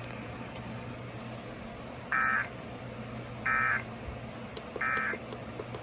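Emergency Alert System end-of-message data signal on an FM broadcast: three short bursts of warbling two-tone digital data, about a second and a half apart, over a steady hum and hiss from the radio.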